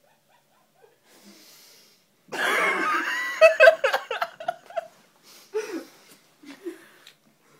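A person laughing hard. The laughter bursts out loudly about two seconds in, with pitch sliding up and down, then trails off into short, scattered laughs and breaths.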